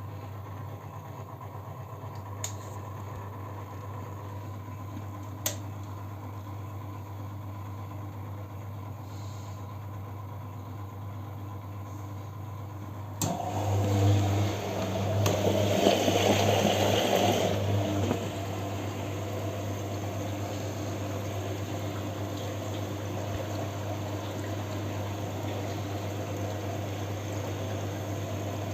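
Siemens washing machine during its final rinse: a steady low hum with a couple of faint clicks, then about halfway through a sudden rush of water noise for about five seconds, settling into a steady running sound.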